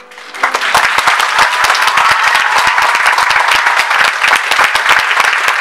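Audience applauding: loud, dense clapping breaks out about half a second in as the last piano chord fades, and holds steady.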